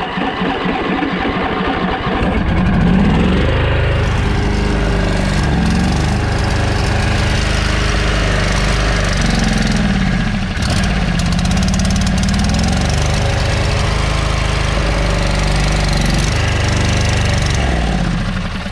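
Riding lawn mower engine run with its oil drained. It cranks and catches about two seconds in, then runs with its speed surging up and down while fuel is fed to it by hand, and dies near the end: the owner thinks it has seized.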